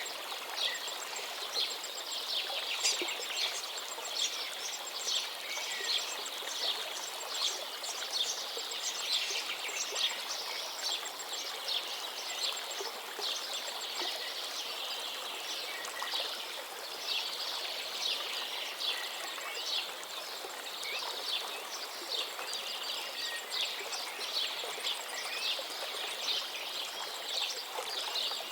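Many small birds chirping and twittering over the steady rush of flowing water, like a stream or small waterfall. The chirps are quick and overlapping, thickest near the start and again in the second half.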